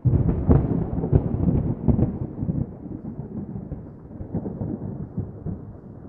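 Rolling thunder from a nearby storm: a sharp crackling peal over the first two seconds that settles into a lower, softer rumble.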